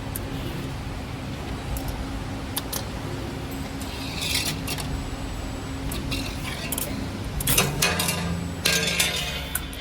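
A CNC 3D wire forming machine running with a steady hum, its mechanism giving sharp metallic clicks and clinks, with a louder burst of metallic clattering about three-quarters of the way through.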